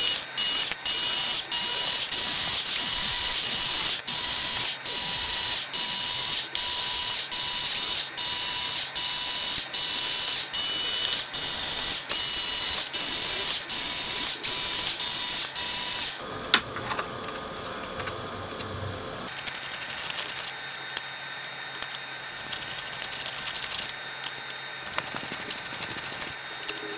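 Cordless electric screwdriver running as it backs out screws from a metal amplifier chassis plate: a loud hissing motor whine that briefly drops off about once a second, stopping about sixteen seconds in. After that, quieter clicks and handling of metal parts.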